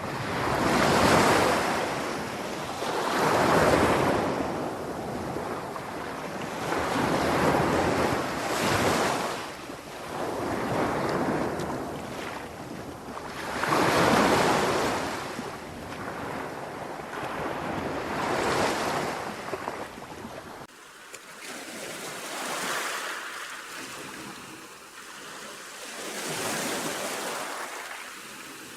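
Sea waves breaking and washing in, the surf swelling and ebbing every few seconds. About two-thirds of the way through the sound changes abruptly to a thinner, quieter surf.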